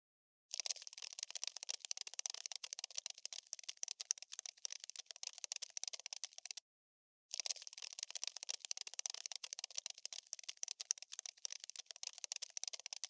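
Dense, rapid skittering clicks and scratches, the sound effect of a cockroach scuttling over a hard surface. It starts about half a second in and breaks off into a short silence about halfway through before resuming.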